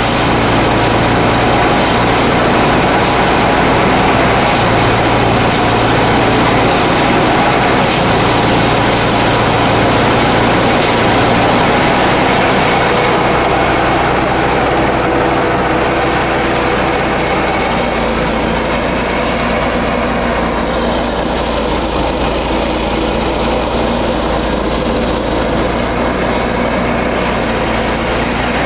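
Small engine-driven rice thresher running steadily and loudly, with a faintly pulsing hiss over it that eases off about halfway through.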